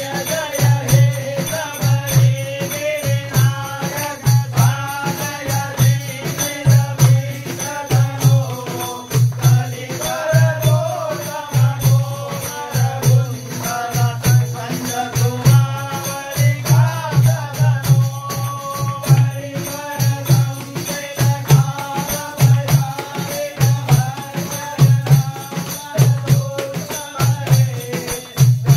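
Men singing an Ayyappa devotional bhajan into microphones, with a group clapping along and a low drum beat about one and a half times a second.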